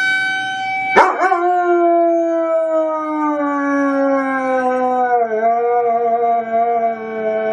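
A white shepherd dog howls in one long howl that slowly falls in pitch, with a brief dip about five seconds in, mimicking a tornado siren. A recorded tornado siren plays as a steady tone, then faintly under the howl after a click about a second in.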